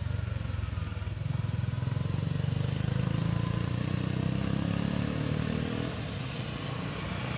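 A motor vehicle engine running close by, growing louder over the first few seconds and then fading as it passes.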